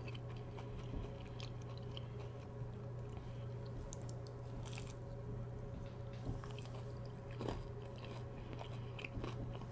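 Close-miked chewing of a breaded chicken tender, with wet mouth sounds and a few faint crunches, over a steady low hum.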